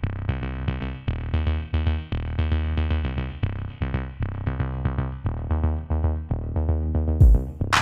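Electronic background music: synthesizer notes repeating in a steady rhythm, with a short loud burst of noise, like a cymbal crash, near the end.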